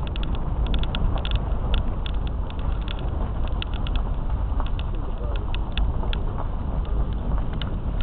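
A car driving slowly on a dirt road: a steady low rumble of the running car and its tyres, with many small irregular ticks of gravel under the wheels.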